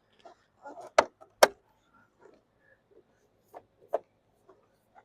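Plastic roof-rack trim pieces being handled and pressed into place: two loud sharp clacks about a second in, then two softer knocks near the end, with light rubbing and small clicks between.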